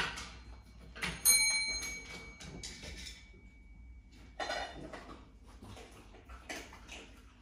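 A bell is rung once a little over a second in, a clear ring with several high tones that dies away over about three seconds. Knocks and a short clatter follow, from handling at the table and the treat jar.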